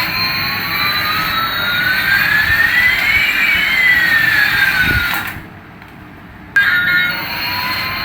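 Toy jet plane's built-in jet-engine sound effect: a whine gliding up in pitch while a second tone slides down. It cuts out for about a second some five seconds in, then starts again abruptly with the whine rising once more.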